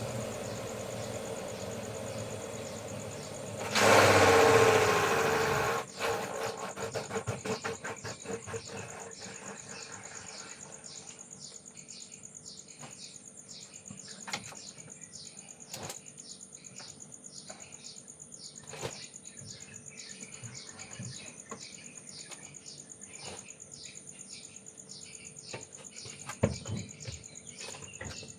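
Evening insects chirping in a steady, high-pitched, rhythmic chorus. About four seconds in, a loud rushing noise lasts around two seconds and cuts off suddenly.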